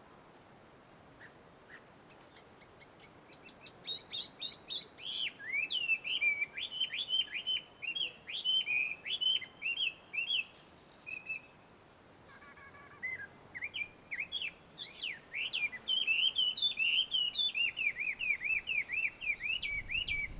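Chinese hwamei (gabichō) singing a rapid, varied string of loud whistled notes that slide up and down. The song starts a few seconds in, pauses briefly about halfway, then starts again and goes on.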